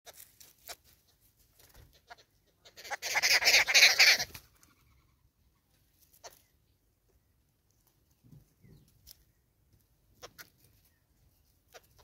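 A grey go-away-bird calls once, a loud drawn-out call of about a second and a half a few seconds in. Short faint clicks and chirps are scattered before and after it.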